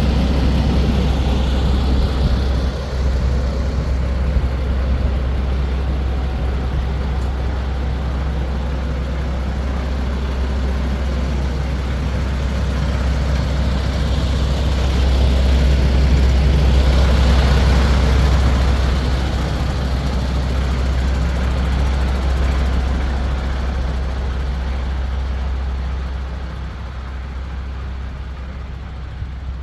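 MAN TGS 26.360 truck's diesel engine idling with a steady low drone. It grows louder for a few seconds about halfway through, then eases off and is somewhat quieter near the end.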